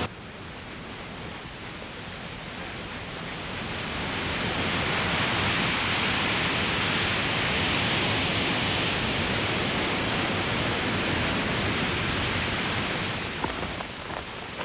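A steady rushing hiss that swells over the first few seconds, holds, then eases off near the end.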